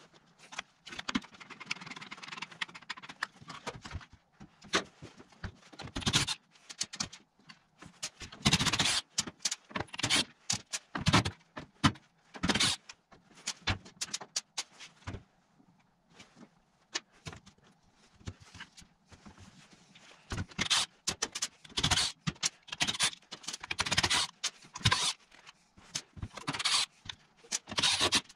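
Irregular clattering, scraping and knocking of tools and metal and plastic parts on a workbench as a Stihl FS55 two-stroke string trimmer is taken apart, in uneven runs with short pauses.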